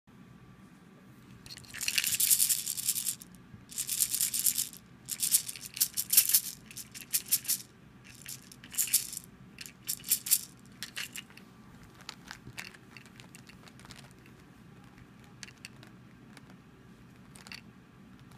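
A plastic baby rattle toy shaken by hand, giving about half a dozen loud bursts of rattling over the first ten seconds or so, then only scattered light clicks and rattles.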